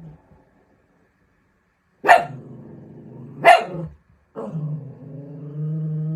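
A dog barks twice, then gives one long vocal call held at a steady pitch.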